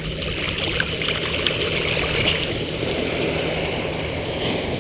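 Shallow ocean surf washing and fizzing over the sand around a person's feet, with small splashes. It rushes strongest for the first couple of seconds, then eases.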